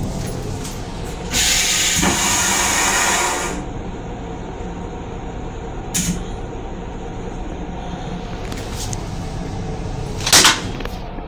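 Flush of the toilet in a Metro-North M8 railcar restroom: a loud rushing whoosh starts about a second after the flush button is pressed and lasts about two seconds, over the steady low rumble of the railcar. A short click follows, and near the end the plastic seat lid is pushed and gives a sharp knock.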